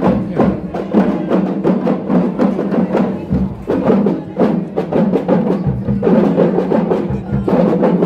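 Music driven by rapid, dense drum percussion, hits coming several times a second over steady pitched tones.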